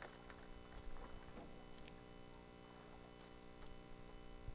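Faint steady electrical hum from the sound system, with a few soft knocks.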